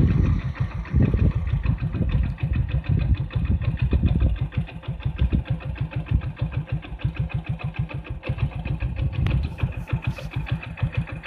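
An engine running steadily with a regular chugging beat, about seven beats a second, with a few louder swells in the first few seconds.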